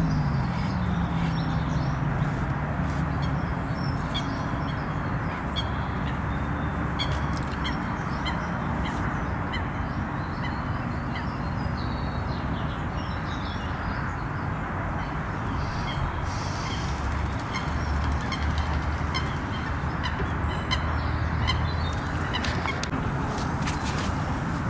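Outdoor lakeside ambience: a steady rushing background noise with many short, high bird chirps scattered over it, and waterfowl calls.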